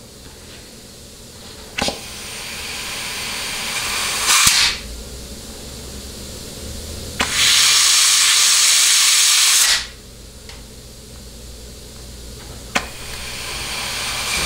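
Compressed air from a blow gun hissing into the forward clutch feed of a Ford C6 transmission, applying the forward clutch piston so the clutch pack clearance can be read on a dial indicator. There are three blasts: the first and last each start with a click and build up, and the middle one is loud and steady for about two and a half seconds.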